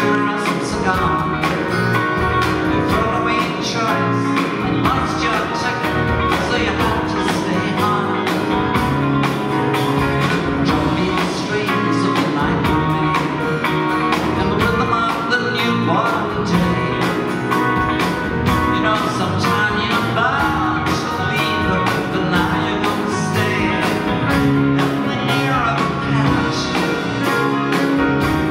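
Live band playing a mid-tempo soft-rock song: acoustic and electric guitars, bass, keyboards and a drum kit keeping a steady beat, with a lead line bending in pitch now and then.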